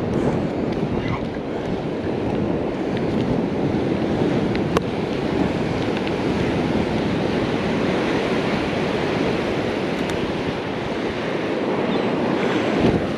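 Ocean surf washing steadily on the beach, with wind on the microphone; a single sharp click about five seconds in.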